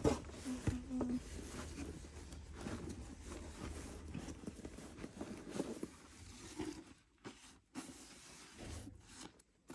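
Paper wrapping and a cloth dust bag rustling and crinkling as a handbag is unwrapped and lifted out of its cardboard box, with small handling taps. It gets quieter and patchier in the last few seconds.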